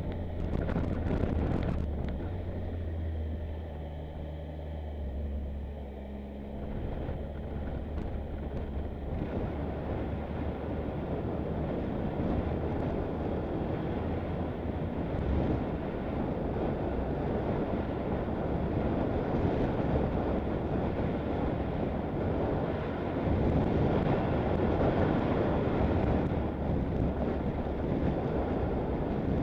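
Motorcycle engine running on the move, with wind rushing over the microphone that builds up about nine seconds in and then covers the engine.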